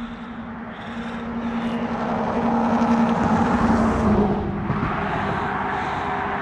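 A motor vehicle passing by, its engine and tyre noise building to a peak and then dropping in pitch as it goes past about four seconds in.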